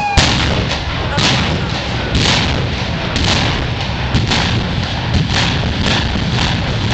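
Explosive demolition charges of a high-rise building implosion going off in a rapid sequence, about two sharp blasts a second, the first and loudest right at the start. Under the blasts runs a continuous low rumble.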